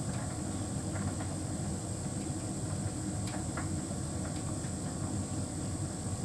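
Hotpoint heat pump tumble dryer running mid-cycle: a steady low rumble and hum from the turning drum and machinery, with a steady high whine and a few faint, irregular ticks.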